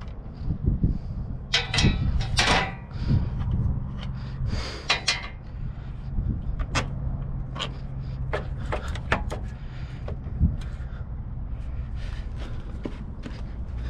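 Sharp metal clanks and clicks as hand tools and truck parts are handled during a repair, heaviest in two clusters a second or two in and around five seconds in, over a steady low rumble.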